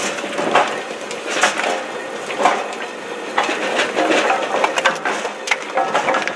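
Split firewood pieces clattering and knocking against each other as they tumble over the spinning star-disc rollers of a Posch firewood processor's cleaning screen. The knocks come irregularly, several a second, over a steady machine hum.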